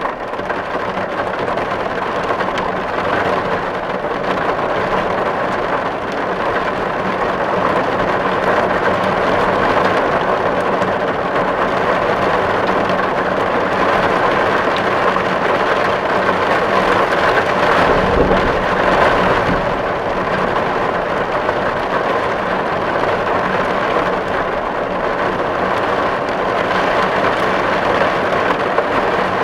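Steady rain drumming on a metal tin roof, an even patter of drops on the sheet metal. About two-thirds of the way through, a low rumble briefly swells under the rain.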